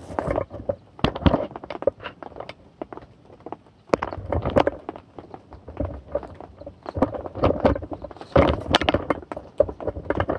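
Irregular knocks, clicks and rustles close to the microphone, with heavier clusters about four and eight seconds in: handling noise from someone working among wet grass and fishing gear on the bank.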